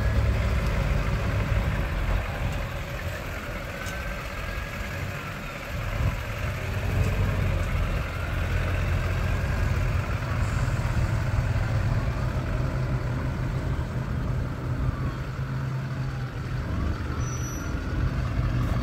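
Engine of a 2001 GMC Sierra 2500HD pickup running steadily as the truck is driven slowly around a dirt lot.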